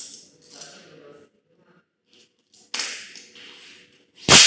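Polarizer film being pulled off the glass of an LCD TV panel: short ripping and crackling sounds. After a quiet spell there is a sudden loud rip about three seconds in, then a sharp, loud snap just before the end.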